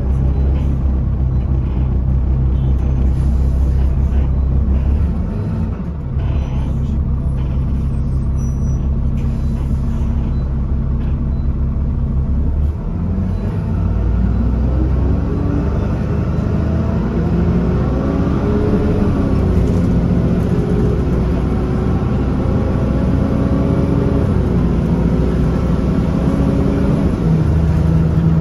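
Alexander Dennis Enviro300 single-deck bus's diesel engine running, heard inside the saloon from the rear seats: a steady idle hum at first, then from about halfway the engine note rises and falls several times, settling into a steady low hum near the end.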